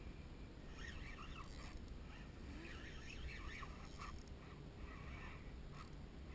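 Wind on the microphone and small waves lapping in shallow bay water, with faint, scattered bird calls in the distance.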